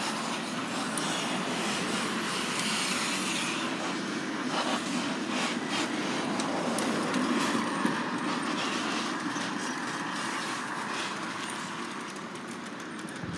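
Bicycle being ridden along an asphalt street: steady tyre-on-road and wind noise with faint light rattles, easing a little near the end.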